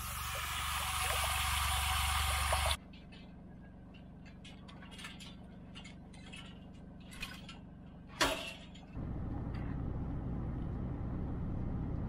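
Water rushing from a hose into a stock tank as a loud steady hiss, cut off abruptly under three seconds in. Then scattered faint clicks and crunches with one sharp clink about eight seconds in. From about nine seconds, the steady low rumble of a vehicle driving, heard from inside the cab.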